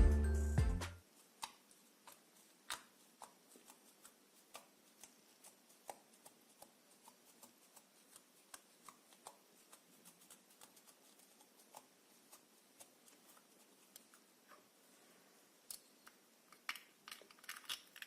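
Faint scattered clicks and small taps from slime being handled and mixed, sticky little pops coming at irregular intervals, with a short cluster near the end. The end of a music track fades out about a second in.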